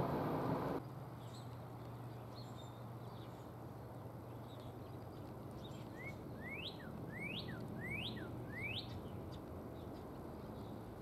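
Rail noise from a train that has just passed cuts off abruptly under a second in, leaving quiet outdoor air with a low steady hum. Birds chirp, with four quick rising whistled notes in a row about six to nine seconds in.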